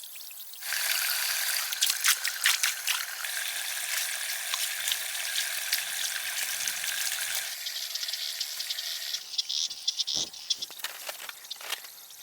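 Water pouring and splashing: a crackly hiss that starts suddenly about a second in and drops away a little past the middle, followed by scattered drips and clicks.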